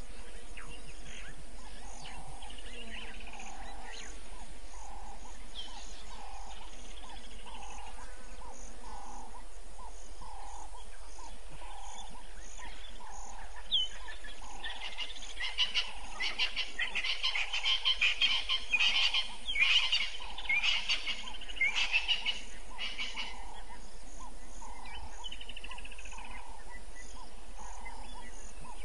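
Frogs and insects calling in the bush at dusk: a steady, evenly repeated low pulsing call and a faster high ticking. A loud run of rapid, chattering high calls rises over them from about halfway through and stops a few seconds before the end.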